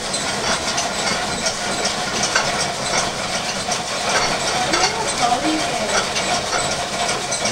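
Cast iron grain grinder in a historic grist mill running, driven by belts over wooden pulleys: a steady mechanical hum with a dense, continuous rattle of small ticks.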